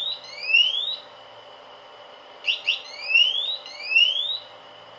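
Electronic buzzer on an Arduino pool reel controller sounding its warning chirps: two quick upward chirps followed by two longer rising sweeps, the group repeating about every two and a half seconds. The sound means the system is powered and active, a prompt to switch it off before the reel is used, while the controller counts down before the motor runs.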